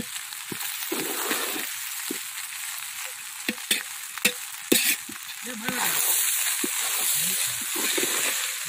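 A steel spoon stirring and scraping boiled rice in a metal pot over a wood fire, with irregular clinks of spoon against pot over a steady sizzling hiss.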